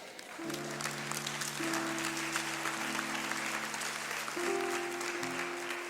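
Congregation applauding and clapping while soft music of long held chords begins underneath, the chords shifting a few times.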